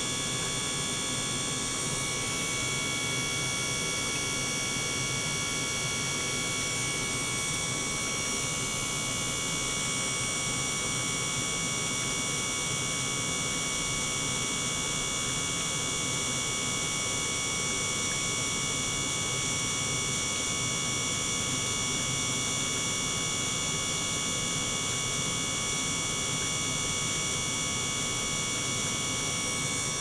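Small motor-driven gear pump running steadily as it circulates water: an even hum with several steady high whining tones over a faint hiss.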